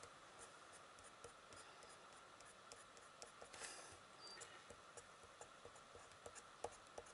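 Faint scratching of a Derwent Inktense coloured pencil on paper in short, flicking strokes, with small irregular ticks and one slightly longer stroke about halfway through.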